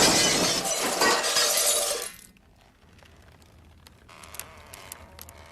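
Glass shattering in a long crash that stops abruptly about two seconds in, followed by a few faint tinkles of small pieces.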